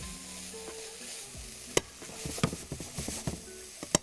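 Minced meat sizzling in a hot pan with no oil, while metal tongs stir it and knock and scrape against the pan, with two sharp clicks, one a little before two seconds in and one near the end.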